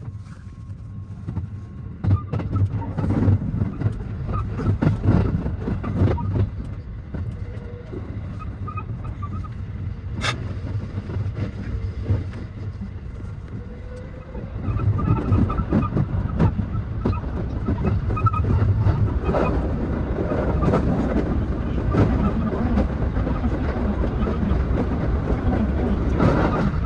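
223 series 2000 subseries electric train pulling away and running, heard from the cab: a low rumble of wheels and motors with clicks and knocks over the rail joints, growing louder about two seconds in and again about halfway through as it picks up speed. A single sharp click sounds about ten seconds in.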